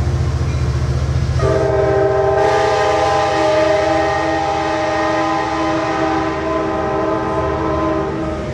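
Bilevel commuter coaches rolling past with a low, steady rumble of wheels on rail. About a second and a half in, a train's air horn sounds a steady chord of several tones and holds it for about seven seconds.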